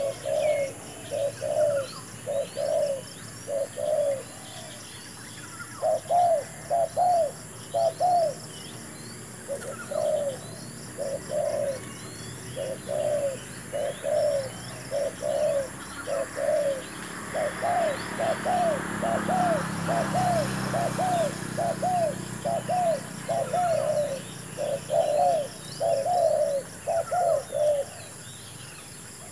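Spotted doves cooing over and over, short coos in quick groups of two or three with only brief gaps between groups.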